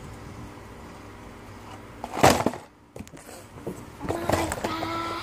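A loud knock or clatter about two seconds in, then a child's voice holding a sung note near the end.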